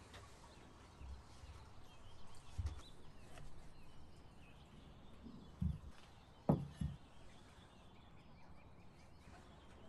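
Objects being handled and set down on a wooden workbench: a few soft knocks, the loudest about six and a half seconds in, over faint background noise.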